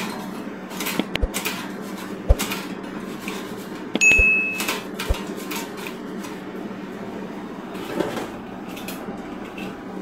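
Raw potato strips rattling as they are shaken in a plastic air fryer basket, with several knocks of the basket, over the steady hum of the air fryer oven's fan. A single short electronic beep sounds about four seconds in.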